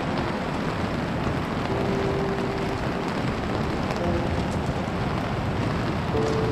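Fast-flowing mountain river water rushing steadily.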